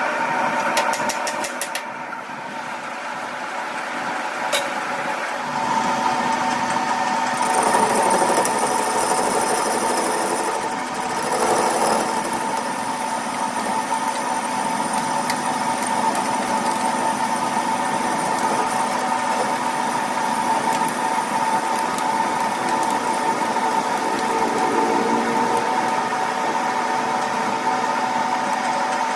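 A machine motor running steadily with a constant hum and whine, with a few sharp clicks near the start.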